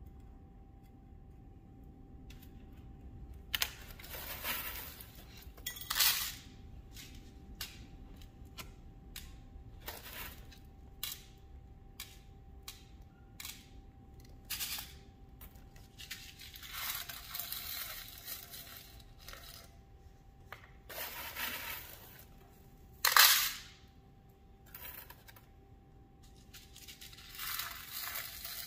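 Small chunks of coloured glass frit clicking and rattling as they are picked from a glass bowl and dropped and pushed into a fusing mold. Scattered single clicks alternate with short rattling bursts, the loudest about two-thirds of the way through.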